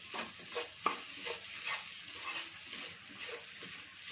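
Onions and ground spice powders sizzling in hot oil in a pan while a spoon stirs and scrapes through them in short irregular strokes, roasting the masala.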